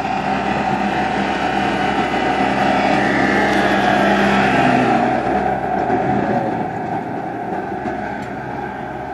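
Yanmar EF338V compact tractor's diesel engine running as it drives past with its rotary tiller working the soil. It is loudest as it passes about four seconds in, then fades as it moves away.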